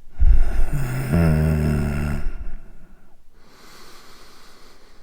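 A man's laboured, sick-sounding breathing. First comes a loud, hoarse breath of about two seconds with a low voiced moan in it, then a much quieter airy breath.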